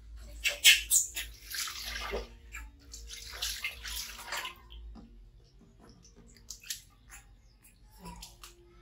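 Water splashing as a baby monkey is washed by hand at a plastic basin, in two short stretches in the first half, then quieter with a few small knocks.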